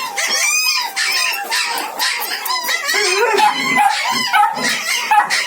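Several Spitz puppies yapping and whining together, a busy run of short, high-pitched, overlapping cries.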